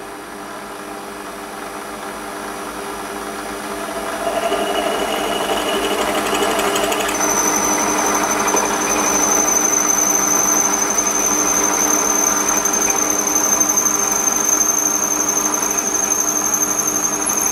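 Warco WM180 lathe running with a 6.35 mm drill bit in the chuck, drilling a pilot hole into a metal block. The steady machine hum is joined about four seconds in by the louder noise of the bit cutting, and from about seven seconds a steady high squeal of the drill in the hole.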